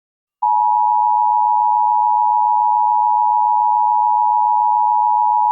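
Emergency Alert System attention signal: two steady tones sounding together, close in pitch just under 1 kHz, starting about half a second in and held loud and unchanged.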